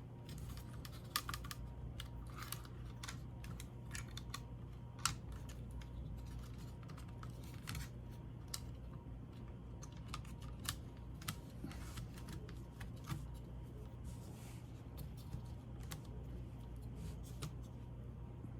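Small irregular clicks and taps of plastic laptop parts and connectors being handled and fitted, over a steady low hum.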